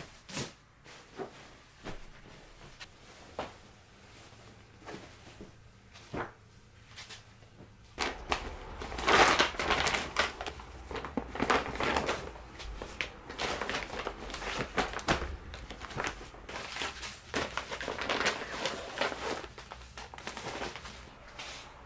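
A large shopping bag and a fabric blanket rustle and crinkle as the blanket is handled and packed into the bag. A few light clicks and knocks come first, then from about eight seconds in comes louder, steady crinkling.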